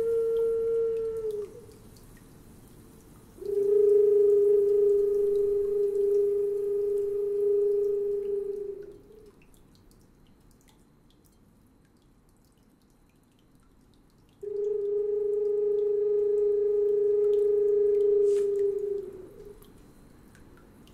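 Slow solo notes on a small wind instrument held cupped at the mouth: a held note fades out about a second in, then two long steady notes on the same pitch, each held about five seconds and sagging slightly in pitch as it dies away, with long pauses between them.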